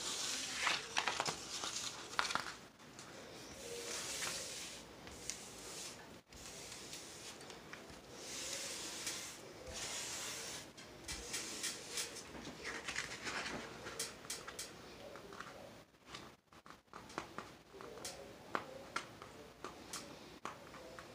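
Hand and forearm sliding over the paper cover sheet of a diamond painting canvas: soft, repeated rustling swishes, with scattered small clicks and crinkles.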